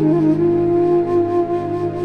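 Background film music: a flute-like melody holds one long note over a low sustained drone, with a faint regular ticking beat.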